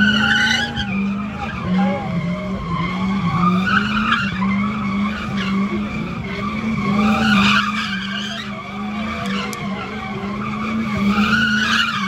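A car doing donuts: tyres squealing continuously over an engine held at high, steady revs, the squeal wavering in pitch and swelling every few seconds.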